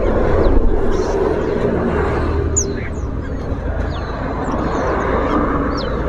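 Steady low traffic rumble and general din, with scattered short, high chirps from small caged songbirds.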